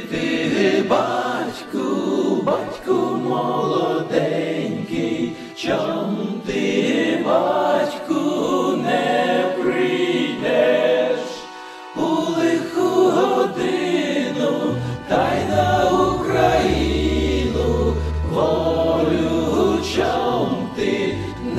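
Music: a choir singing a song. Deep bass notes join in after about fifteen seconds.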